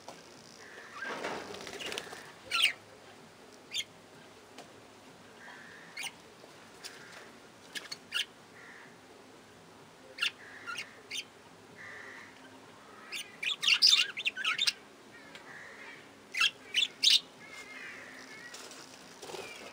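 Budgerigar flock chirping and chattering: short, sharp calls scattered throughout, densest about two-thirds of the way through, with a brief flutter of wings about a second in.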